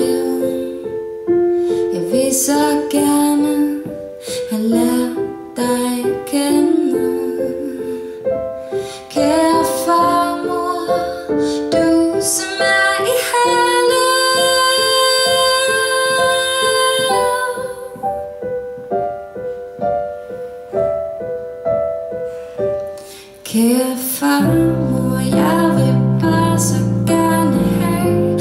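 A woman singing to her own accompaniment on a Casio electric keyboard with a piano sound. About halfway through she holds one long note, and near the end low bass notes come in under the chords.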